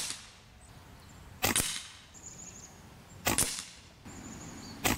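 Three shots from an AEA Precision SF Standard .22 calibre PCP air rifle, spaced about a second and a half to two seconds apart, the last near the end. Each is a sharp report with a short ring-out.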